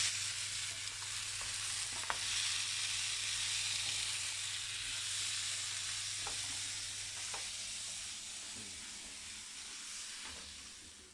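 Diced courgettes sizzling as they fry in a frying pan over high heat, stirred with wooden spoons, with a few light clicks of spoon on pan. The sizzle fades near the end as the pan is lifted off the heat.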